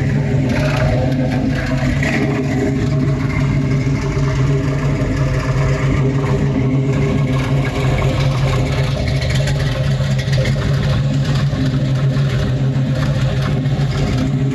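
Car engine running steadily, a loud even drone with no change in speed or revving.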